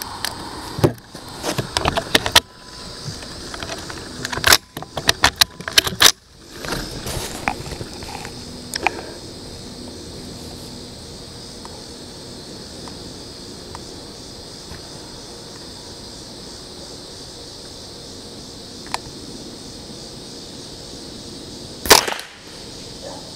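Clicks and rattles of small metal and plastic parts as the rifle is readied over the first several seconds. Near the end comes a single sharp .22 LR shot from a Ruger 10/22 firing CCI Standard Velocity ammunition.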